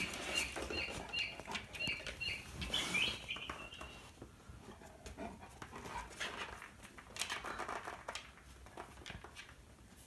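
Recorded bird call from a bird-song wall clock: a quick run of short, high repeated notes, about two or three a second, that stops about three and a half seconds in. This is followed by irregular scuffling and clicking as a golden retriever moves about on a wooden floor.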